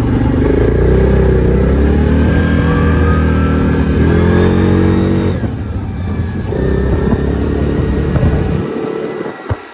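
A vehicle engine accelerating, its pitch climbing. It eases off a little past halfway, pulls up again, then drops away near the end.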